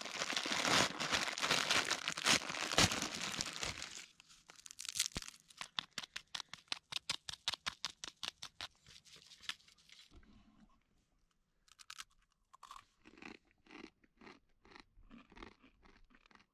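A plastic instant-ramen wrapper crinkles and tears as it is opened. Then comes a quick, even run of crisp crackles as the dry noodle block is handled and broken, and near the end a few scattered crunches of dry noodles being chewed.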